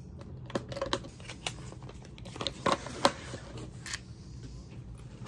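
Light clicks and taps of skincare products and their packaging being handled and sorted through, a handful of sharp ticks at uneven intervals over a faint steady hum.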